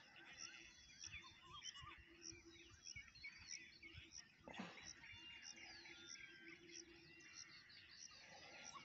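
Faint birdsong: several birds chirping and warbling, one repeating a short high chirp about twice a second, with a brief falling sound about halfway through.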